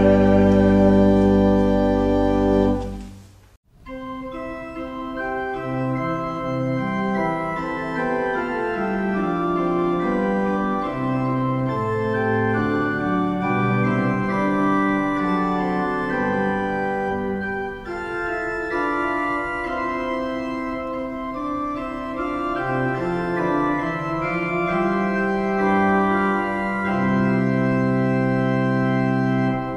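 Organ holding a full sustained chord that cuts off abruptly about three and a half seconds in, then an organ piece of held notes moving in melodic lines over a changing bass.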